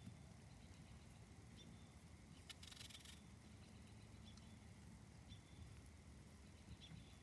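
Near silence: faint, short, high chirps from a small bird every second or two, and a brief rustle about two and a half seconds in.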